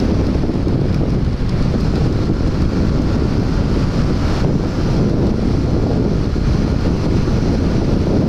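Steady wind noise buffeting the microphone of a motorcycle-mounted camera at highway speed, a dense low rush that masks any clear engine note.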